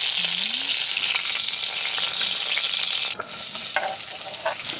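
Duck legs sizzling and crackling in hot fat as their skin is seared, the meat already cooked. There is a click about three seconds in.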